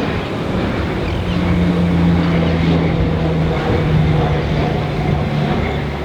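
A vehicle engine running steadily over wind noise, its low hum dropping a step in pitch about three and a half seconds in.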